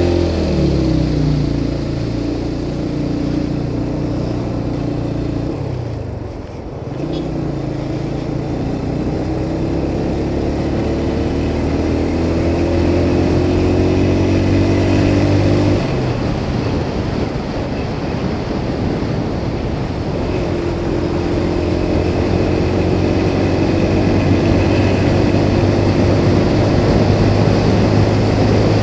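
Motorcycle engine accelerating through the gears: the pitch climbs steadily, dips and picks up again twice at the upshifts, over a steady rush of wind and road noise.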